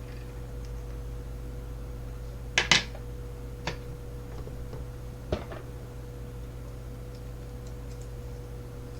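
A few small metallic clicks and taps as a lock and picking tools are handled: a quick double click about two and a half seconds in, then single clicks about one and two and a half seconds later, over a faint steady hum.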